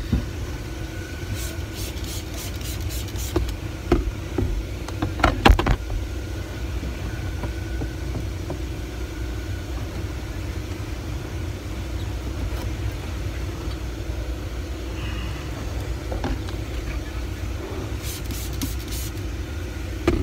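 A truck's engine runs with a steady low rumble, heard from inside the cab. A few sharp knocks from things being handled come about four and five and a half seconds in, and there are short runs of quick light ticks near the start and near the end.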